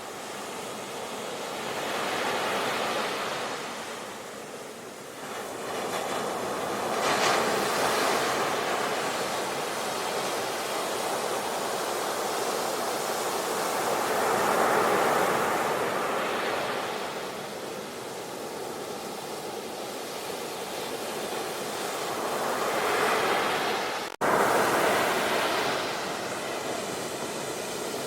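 Ocean surf: waves breaking and washing in as a rushing hiss that swells and fades every few seconds. The sound cuts out abruptly for an instant near the end.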